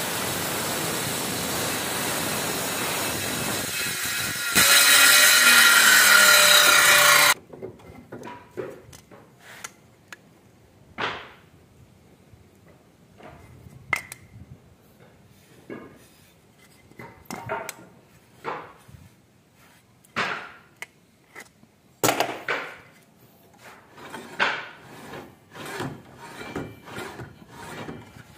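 Makter electric circular saw running and cutting wood. It gets louder for the last few seconds of the cut, then cuts off suddenly about seven seconds in. After that come scattered light knocks, clicks and rubs of wooden pieces and a steel square being handled.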